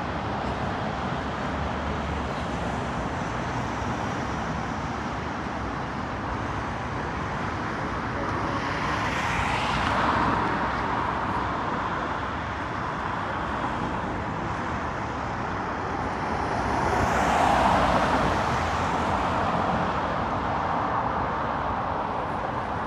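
City street traffic: a steady hum of road noise, with two vehicles passing close by, each swelling and fading, one near the middle and a louder one about three-quarters through.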